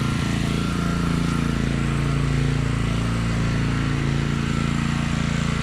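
WEN GN400i inverter generator running steadily in normal (non-eco) mode, its small engine holding an even speed, with a faint steady high whine over it.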